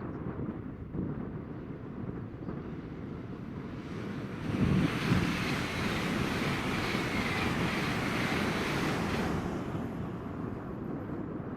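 A train passing through on the main line: a rushing mix of wheel and air noise that surges about four and a half seconds in, holds for several seconds, then dies away near the end.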